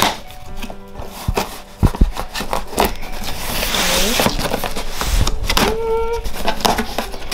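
Background music over the clicks, knocks and rustling of a parcel being opened by hand, with a hissy stretch of rustling in the middle.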